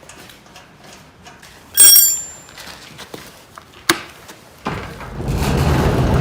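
Metal hardware being worked on a sliding gate's gear rack: light ticks, a loud ringing metallic clink, then a sharp click. Near the end a steady mechanical noise starts and keeps going.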